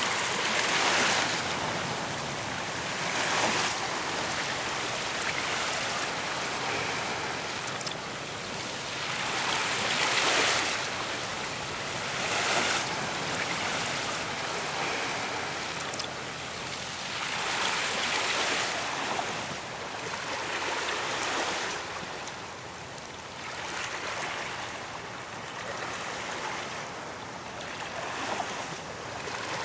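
Ocean surf breaking on a beach: a continuous wash of water, with waves swelling and breaking every few seconds, the strongest about a second in, around ten to twelve seconds in and near eighteen seconds.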